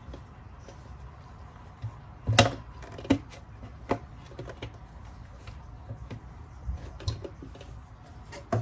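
Scattered clicks and knocks of an Eventuri carbon-fibre intake housing and its cone filter being handled and fitted into an engine bay. The loudest knocks come about two and a half and three seconds in, with a few lighter ones later.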